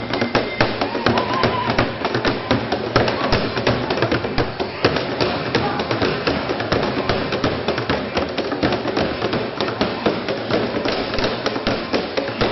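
Loud dance music with a steady, heavy beat, played over a sound system and filling a large hall.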